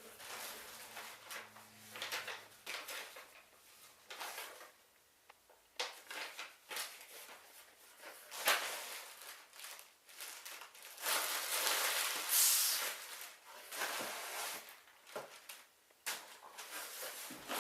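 Packaging being handled and opened by hand: irregular rustling and crinkling with a few sharp clicks and knocks, loudest in a long rustle about two-thirds of the way through.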